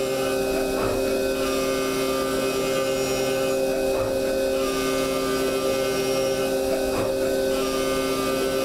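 DMG Mori DMU50 mill's spindle and end mill cutting 6061 aluminium: a loud, steady multi-tone whine that shifts slightly about a second in and again near four and seven seconds.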